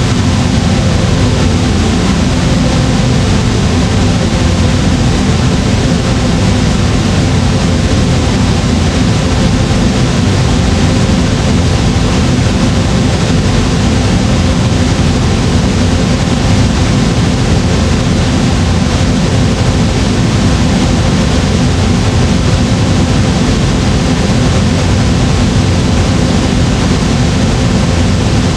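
Flamethrower sound effect: a loud, steady rushing roar of burning fuel, deep at the bottom with a hiss over it, unbroken throughout.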